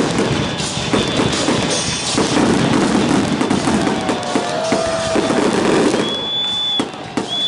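Fireworks display: a rapid, dense run of bangs and crackling from aerial shells, with a high steady whistle twice near the end.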